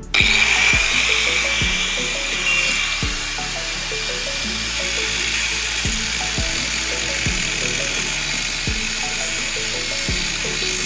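Angle grinder starting suddenly and running with a steady high whine, over background music with a steady beat.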